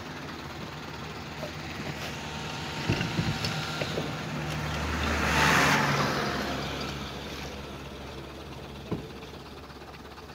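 Light cargo truck engines running on a gravel road, one truck driving past, its engine and tyre noise swelling to a peak about halfway through and then fading. A few rattling knocks about three seconds in.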